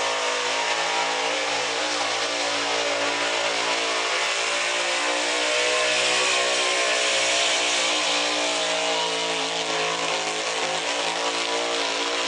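Ford pulling pickup's engine running hard at high revs under load, pulling a sled down the track. The pitch holds fairly steady, wavering slightly, and gets a little louder around the middle.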